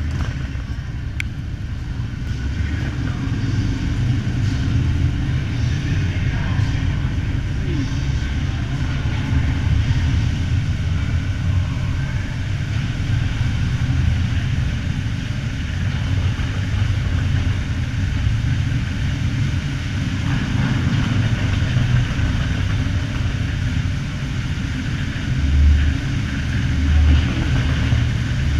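Motorcycle engine running with a steady low rumble as the bike rides through a rock tunnel, swelling louder twice near the end.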